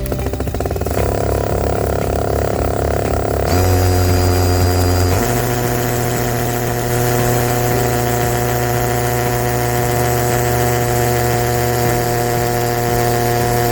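DeWalt DCD709 cordless hammer drill running steadily in hammer mode on low speed (speed 1) while drilling into brick or concrete paver. Its motor pitch shifts a few seconds in, then holds steady.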